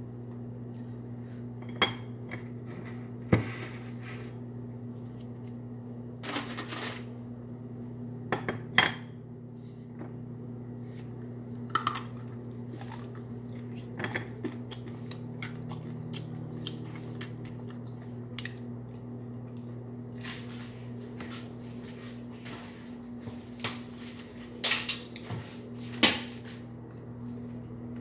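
Hard chunks of smoked clay knocking and clinking against a ceramic plate as they are handled, with scattered sharp clicks and short dry crunches, several seconds apart. A steady low hum runs underneath.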